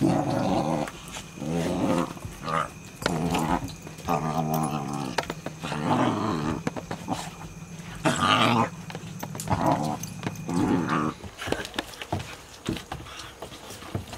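Dogs growling in play: about a dozen short growls over the first eleven seconds, then only faint scuffling and clicks near the end.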